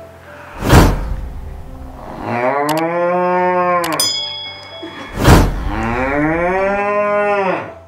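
A man imitating a cow through his cupped hands: two long, drawn-out moos whose pitch rises and then falls, each set off by a short, loud burst of breath.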